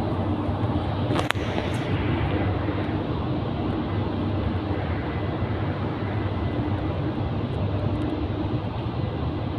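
FGC electric commuter train at an underground station platform: a steady hum with a faint high whine, echoing in the station. One sharp click about a second in.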